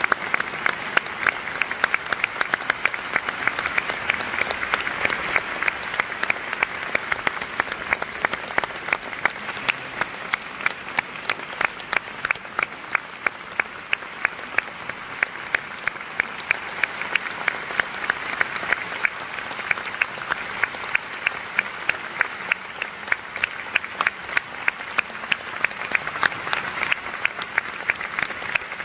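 A concert-hall audience applauding steadily through a curtain call. A close-by clapper's sharp, even claps stand out over the hall's applause.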